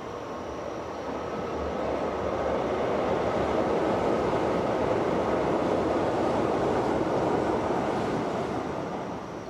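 Steady noise of a passing vehicle, swelling over the first two seconds, holding, then fading near the end.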